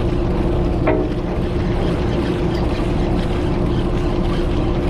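A party boat's engines running with a steady low drone, with a constant hum note over a rumble of wind and water. A short call sounds about a second in.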